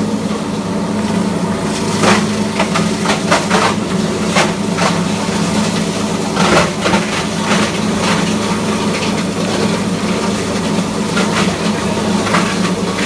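Enma GS300/500-series soundproof granulator running with a steady hum, with irregular cracks and clatter of scrap being chopped by the rotor inside the enclosed cutting chamber.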